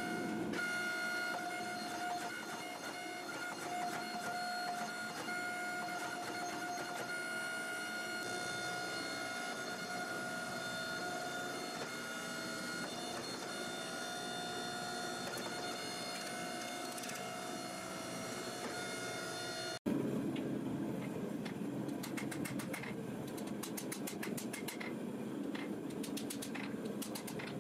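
A hydraulic forging press's motor and pump running with a steady whine while hot steel is worked between its dies. About twenty seconds in, the sound changes abruptly to a hammer striking hot steel on an anvil, a run of sharp blows.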